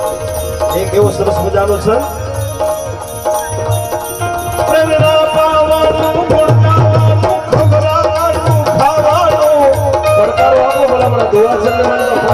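Live Gujarati folk music: harmonium melody over tabla and dholak drumming, getting somewhat louder about halfway through.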